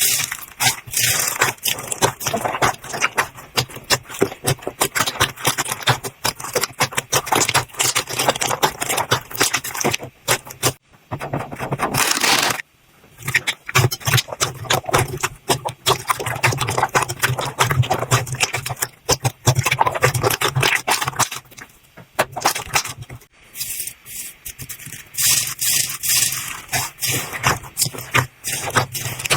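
Slime being squeezed, poked and stretched by hand: a dense stream of crackles, pops and sticky clicks that breaks off briefly a few times.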